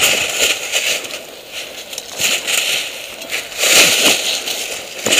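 Footsteps crunching quickly and irregularly through dry fallen leaves, with the crackle of leaves and twigs underfoot.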